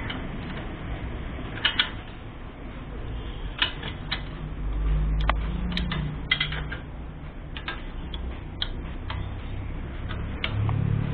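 Metal spanner clicking and clinking against a nut at irregular intervals as it is worked loose on an old Royal Enfield Bullet's cast-iron engine, over a low hum.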